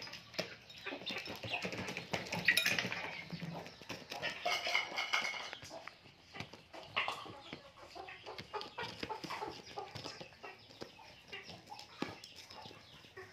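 A chicken clucking, loudest a couple of seconds in and again around four to five seconds, over many small sharp clicks of pecking and chewing at rice in foam trays.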